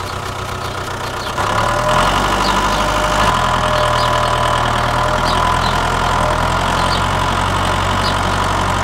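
Tractor engine running steadily, stepping up louder about a second and a half in and then holding an even level.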